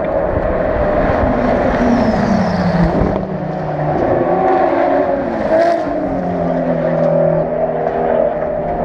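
Racing car engines running in the pit lane during a pit stop, their pitch shifting, with one dropping in pitch about two seconds in. A brief hiss about five and a half seconds in.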